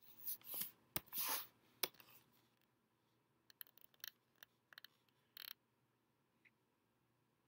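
Faint computer keyboard and mouse clicks as a web search is typed and browsed: a couple of soft rustles in the first second and a half, then scattered quick clicks between about three and a half and five and a half seconds in.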